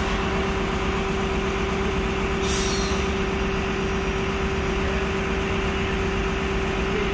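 Heavy diesel power pack of a self-propelled modular transporter running steadily with a constant whine, and a short hiss of air about two and a half seconds in.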